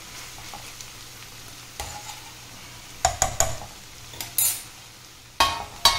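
Round gourd curry sizzling gently in the pan while a spoon stirs it, scraping and knocking against the pan in several short bouts, the loudest near the end. The curry is still cooking down and is not yet done.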